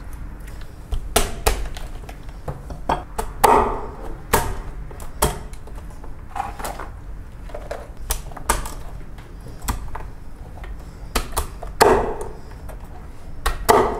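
Large kitchen knife cutting through a giant lobster's shell and striking a wooden cutting board: irregular sharp knocks and clicks, with a few louder cracks.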